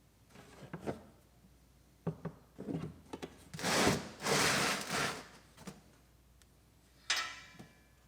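Knocks and clatter of hand work on the mower, then two loud scraping rubs of about a second each, and a shorter scrape with a faint metallic ring near the end.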